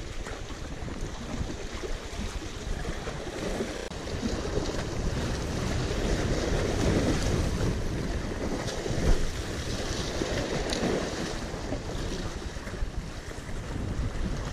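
Wind buffeting the microphone over small waves washing against jetty rocks, a steady rushing that swells in the middle, with one brief knock about nine seconds in.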